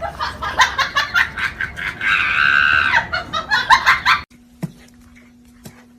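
People laughing hard in quick, choppy bursts, with a sustained high shriek about two seconds in. About four seconds in it cuts off abruptly to a much quieter stretch with a low steady hum and a few light clicks.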